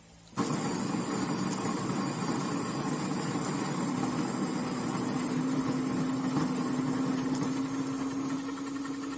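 Electric coffee grinder switching on about half a second in and running steadily, grinding coffee beans on its fine setting, with a steady motor whine.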